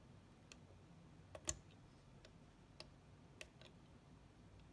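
A handful of faint, scattered clicks and taps as fingers handle the small plastic jumpers and wires on the VFD's circuit board inside its plastic enclosure. The loudest click comes about a second and a half in.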